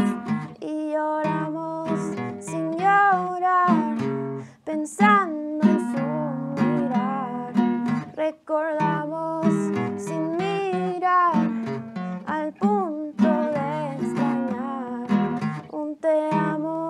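A woman sings a slow Spanish ballad, accompanying herself on strummed acoustic guitar.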